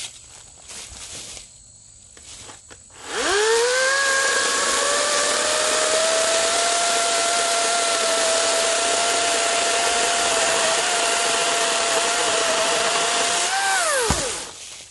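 Ego 56-volt 16-inch brushless battery chainsaw spinning up about three seconds in, then running with a steady electric whine while its chain saws through a 6-7 inch cherry limb. Near the end the pitch lifts briefly as the cut finishes, then the motor winds down quickly when the trigger is released.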